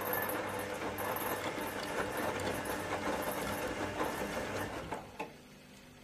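Zanussi ZWF 1621 W washing machine taking in water for a rinse: a steady rush of water into the drum that stops sharply about five seconds in, followed by a single click. A faint hum runs underneath.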